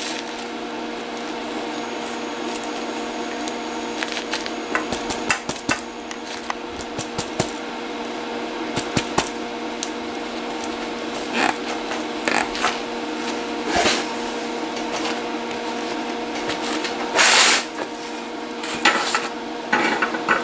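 Steady electrical hum from a TIG welding machine, with scattered metal clinks and knocks as the steel part and tools are handled on a steel bench. There are a few short hissing bursts, the loudest lasting under a second about 17 seconds in.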